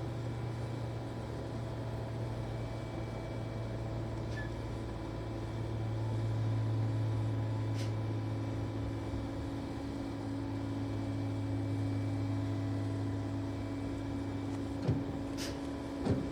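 Backhoe loader's diesel engine idling steadily with a low, even hum, and a few sharp clicks near the end.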